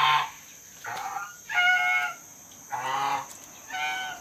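White domestic geese honking: about five loud, nasal calls spaced under a second apart.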